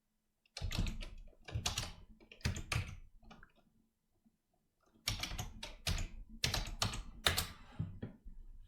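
Typing on a computer keyboard in two bursts of keystrokes, separated by a pause of a second or so in the middle.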